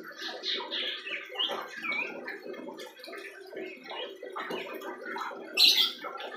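Young common iora practising its song: a rambling, continuous jumble of soft chirps, warbles and short slurred notes, with one loud, sharp, high note near the end.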